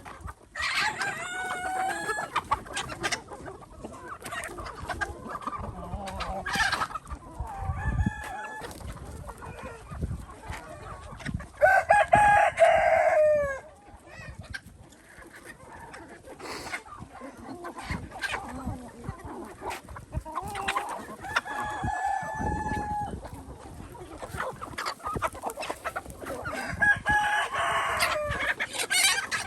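A flock of chickens clucking and calling. A rooster crows loudly about twelve seconds in and again near the end.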